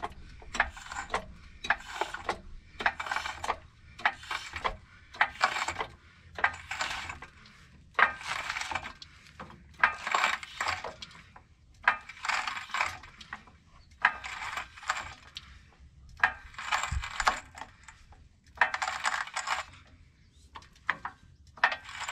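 Vehicle jack being pumped by hand to lift the truck, with a metallic clinking on each stroke, about one a second.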